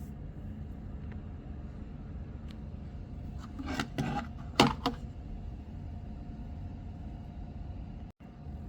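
Handling noise: a quick cluster of clicks and knocks about four seconds in, the sharpest near the middle, over a steady low background hum. It cuts out briefly near the end.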